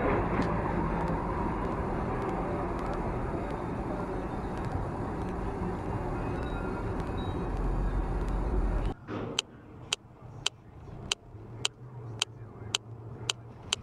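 Steady road and engine noise heard from inside a moving car, which cuts off about nine seconds in. After that there is quieter car noise with a sharp click repeating about twice a second.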